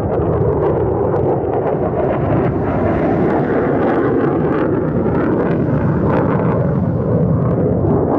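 Lockheed Martin F-35 Lightning II fighter jets flying past, each driven by a single Pratt & Whitney F135 afterburning turbofan. Their engines make a loud, steady rumble with a coarse crackle running through it.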